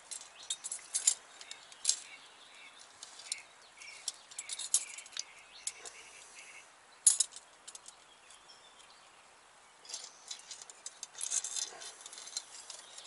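Small metallic clicks and clinks of a hand-held tube bender and a brake hard line being handled and bent, coming irregularly, with a sharper click about seven seconds in and a denser run of clicking near the end.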